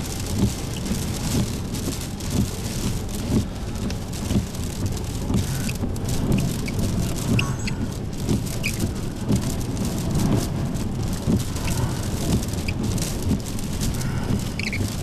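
Heavy rain and gusty wind beating on a storm-chase vehicle, a steady rumble peppered with many small taps of drops: the rain and wind of a tornado's rear-flank downdraft.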